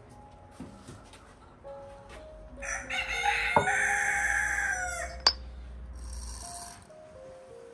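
A rooster crowing once, one long call lasting about two and a half seconds, over soft background music.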